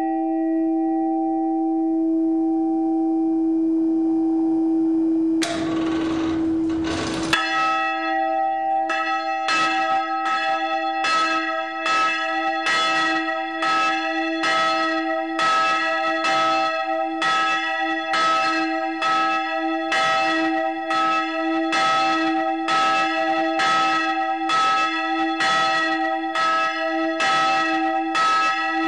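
Church bell swinging and ringing, its clapper striking in an even rhythm of about three strikes every two seconds, each strike ringing on into the next. Before the strikes begin, a held bell tone sounds for about five seconds and is cut off by a short burst of noise.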